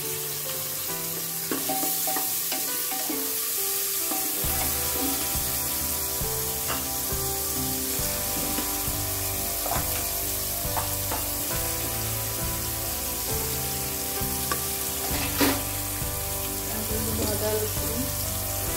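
Sliced onions frying in hot oil in a pot, sizzling steadily, with a few sharp clicks from a spatula stirring against the pan.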